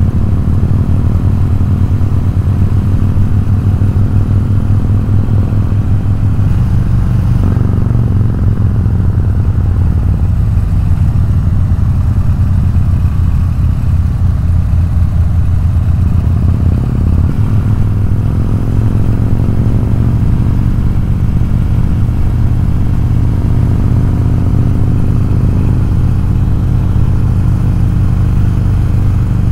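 Harley-Davidson V-twin motorcycle engine running steadily under way, heard from on the bike. Its pitch shifts a couple of times as the throttle or gear changes.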